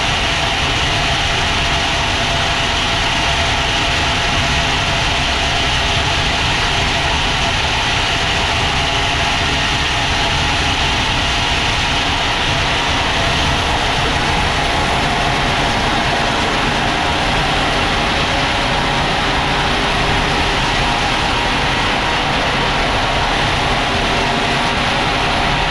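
Sawmill machinery running steadily: a loud, unbroken engine-like drone with a dense hiss over it and no pauses.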